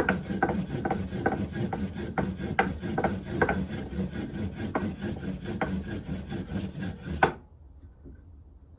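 A cotton-and-wood-ash fire roll being rolled hard back and forth under a wooden board: a rhythmic rasping rub at a little over two strokes a second, the friction heating the roll toward an ember. The rubbing stops suddenly near the end.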